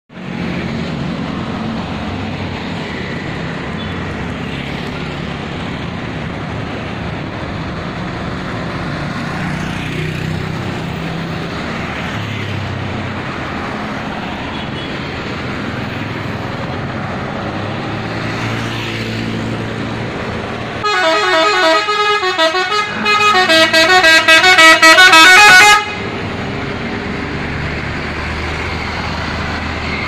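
Street traffic running past, then, about two-thirds of the way through, a tour bus's telolet horn plays a loud tune of quickly changing notes for about five seconds and cuts off suddenly. The bus is a Mercedes-Benz with an Adiputro Jetbus 2+ HDD body.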